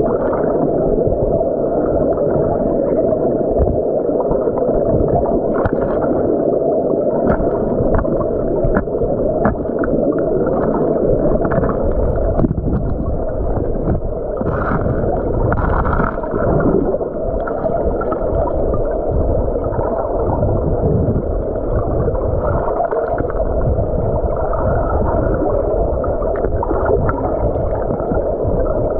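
Stream water heard through a submerged camera: a steady, muffled rush with scattered clicks of gravel and stones knocking together as the streambed is stirred up.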